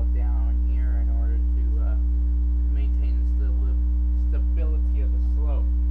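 Loud, steady electrical mains hum in the recording, with a woman's voice talking faintly underneath it.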